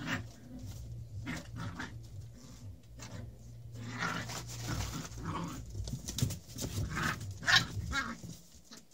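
Lancashire Heeler puppies making small dog noises while scrambling about in a cardboard box, with irregular scrapes and rustles against the cardboard. The scuffling is loudest about four to five and a half seconds in and again near the end.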